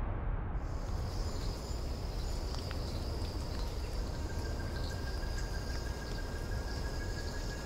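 Outdoor ambience: a steady low rumble with a continuous high, thin chirring over it that sets in about half a second in. A faint steady tone joins about halfway through.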